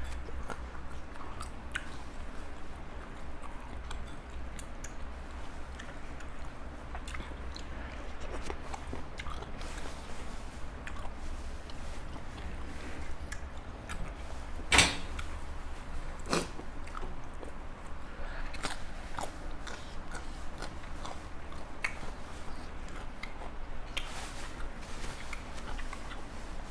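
Close-up sounds of someone eating and chewing, with many small wet clicks and two louder sharp clacks about halfway through.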